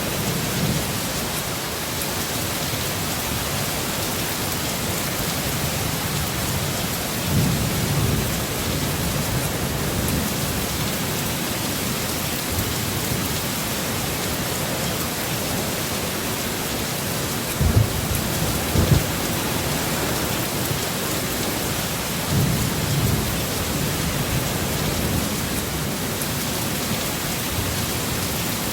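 Heavy, steady rain with low rumbles of thunder rolling in several times, the sharpest two cracks just past the middle.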